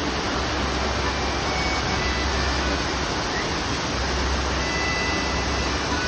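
Large fountain's water cannons and spouts spraying and splashing into the basin: a steady, even rushing of falling water.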